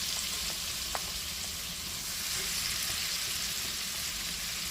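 Shrimp frying in olive oil with Cajun seasoning, a steady sizzle while they are stirred to coat, with one light click about a second in.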